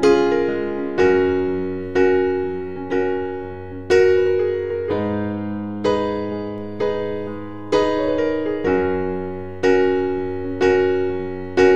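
Background music: slow electric piano chords, struck about once a second and left to fade.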